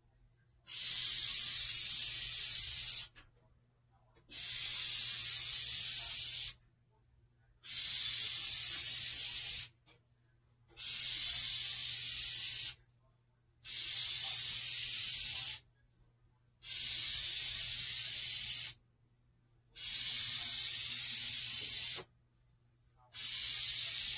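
Aerosol can of vinyl and fabric spray paint hissing in eight bursts of about two seconds each, with short pauses between them, as a coat is laid onto a vinyl seat.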